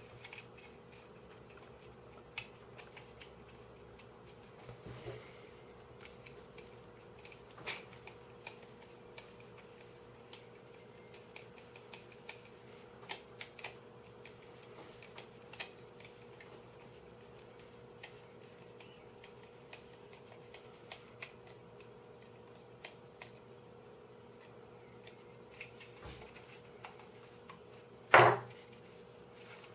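Scattered light clicks and clatter of small 3D-printed plastic puzzle pieces being handled and fitted together, with one sharper knock near the end. A faint steady hum runs underneath.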